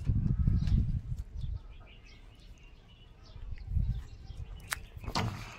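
Wind buffeting the microphone in gusts, loudest in the first second and again near four seconds, with faint bird chirps.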